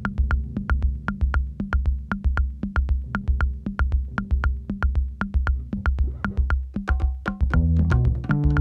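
Electronic background music with a steady drum-machine beat and sharp ticking hi-hats; fuller bass and melody parts come in about seven seconds in.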